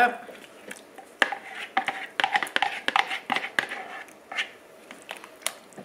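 A plastic spoon stirring chunky stew in a slow-cooker crock: a run of light knocks and scrapes against the crock over the first few seconds, quieter near the end. This happens while a flour-and-water slurry is poured in to thicken the gravy.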